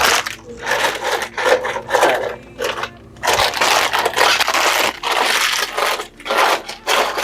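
Plastic snack packets crinkling and scraping in irregular spurts as they are handled and pushed into a snack vending machine's spiral coils.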